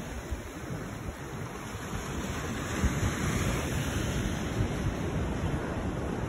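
Ocean surf breaking and washing, with wind buffeting the microphone; the surf grows a little louder about halfway through.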